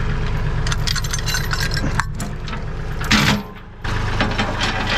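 Tractor engine running steadily, with a sharp clank about two seconds in and a louder rattling burst just after three seconds as the loader bucket works the lifted load. The engine sound drops out briefly after the burst, then returns.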